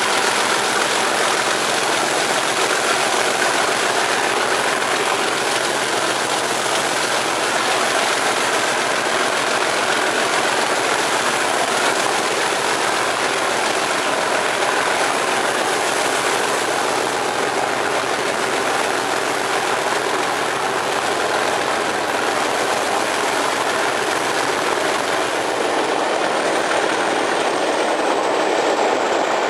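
Class 37 diesel locomotive's English Electric V12 engine working hard at the head of the train, heard from a carriage window together with steady rail and wheel noise. A thin high whine falls in pitch near the end.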